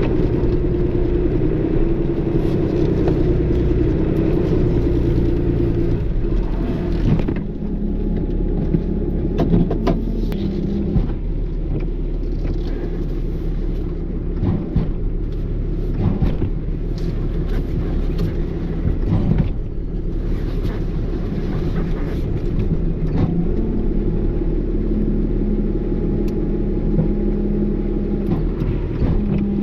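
Tow truck engine running steadily, its pitch shifting a few times, with a few short knocks.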